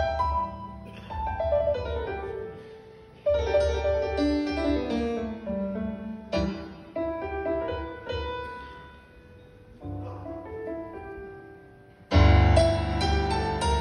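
Stage keyboard with a piano sound playing a free-tempo solo intro, runs and chords that swell and die away, with a falling line into the bass around the middle. About twelve seconds in, a loud full chord with deep bass comes in.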